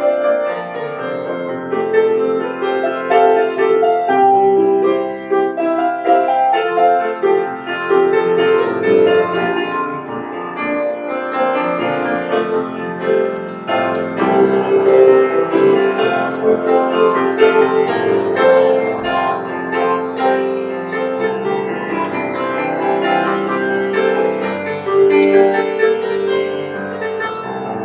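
A grand piano played solo, chords and melody with the notes left ringing.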